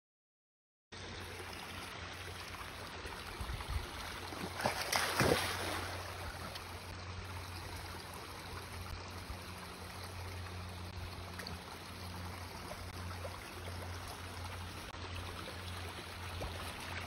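Water of a shallow, rocky stream running steadily, starting about a second in, while a dachshund swims through it. A louder surge of water noise comes about five seconds in.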